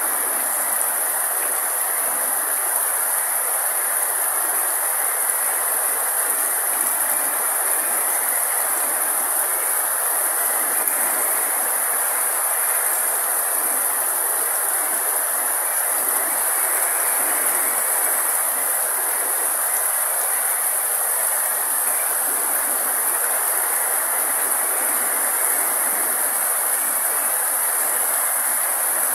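Steady rain falling on leaves and grass, an even, unbroken hiss, with a constant high-pitched hiss running over it.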